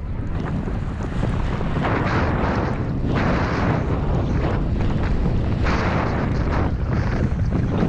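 Wind buffeting the microphone of a downhill skier's camera, a continuous low rumble, with skis hissing through deep powder snow in swells that come about every second and a half as the skier turns.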